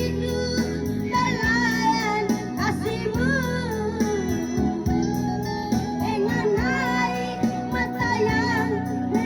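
A song: a solo voice singing with wavering vibrato over steady instrumental accompaniment.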